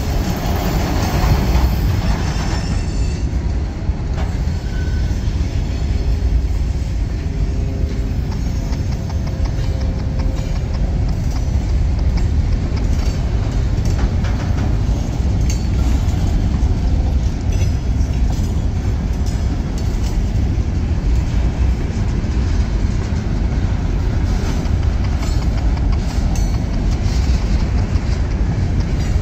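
Freight train's covered hopper cars rolling past over a grade crossing: a steady low rumble of steel wheels on the rails with rattling from the cars.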